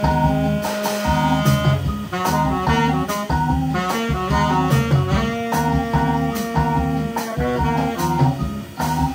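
Live band playing upbeat mod jazz: guitar and bass over regular drum hits, with long held melody notes.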